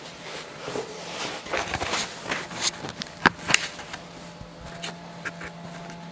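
Handling noise as the camera is picked up and moved: rustling and knocks with two sharp clicks about three seconds in, over a steady low hum.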